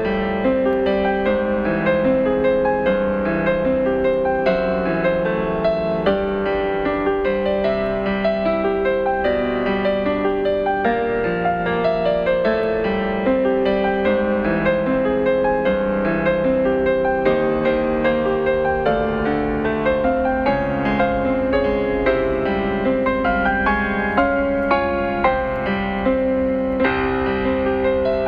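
Background piano music: a gentle, continuous melody over chords.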